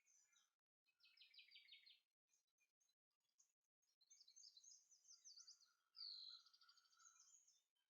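Faint birdsong: high chirps and quick repeated trills, with a brighter downward-swooping note about six seconds in that runs straight into a rapid trill.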